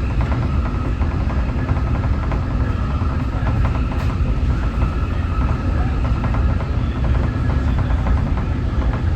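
Nippon Sharyo diesel multiple unit travelling at speed, heard from on board: a steady low rumble of engine and wheels on rail, with a faint steady whine above it.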